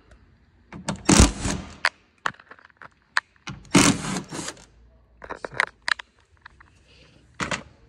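Hand work on a car door's inner panel and lock: two scraping, rustling bursts of about a second each, one near the start and one about four seconds in, with scattered sharp clicks of plastic and metal parts between them.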